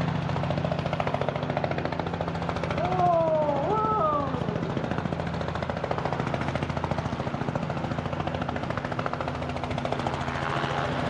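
Helicopter running close by: a fast, steady chop of the rotor blades over a steady low engine hum.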